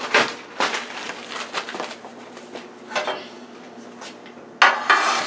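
A stainless steel baking pan being handled on a kitchen counter: scattered knocks and rustles, then a louder, longer noisy clatter near the end.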